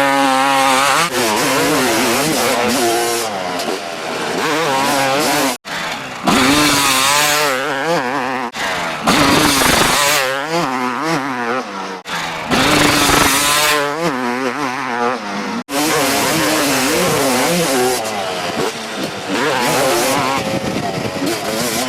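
Kawasaki KX250 single-cylinder two-stroke motocross engine at racing revs, its pitch constantly rising and falling through throttle blips and gear changes. Three brief, sudden breaks interrupt it.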